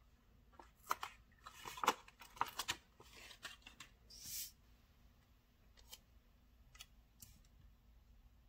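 Paper planner pages and stickers handled by hand: a cluster of crisp crinkles and clicks for about two and a half seconds, a short rustle about four seconds in, then a few faint ticks.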